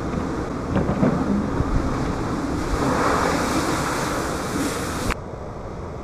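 Blizzard wind buffeting the microphone over storm-surge surf washing in. A rushing hiss of water swells from about halfway, then cuts off suddenly about five seconds in, leaving softer wind noise.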